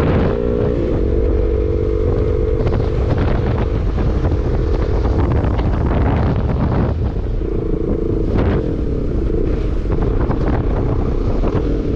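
Motorcycle engine running steadily while riding, with heavy wind buffeting on the microphone. The wind partly covers the engine note in the middle, and the engine stands out clearly again about eight seconds in.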